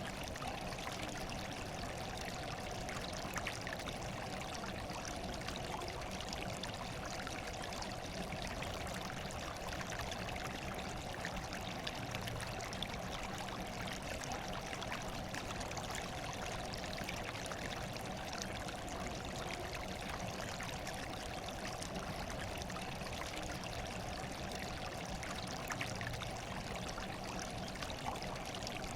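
Running water trickling and splashing steadily, an even unbroken rush with faint scattered drips.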